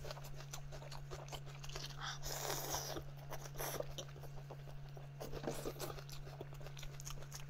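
A person chewing a mouthful of spicy sweet roast rib close to the microphone: wet mouth clicks and smacks, with a longer breathy stretch about two seconds in.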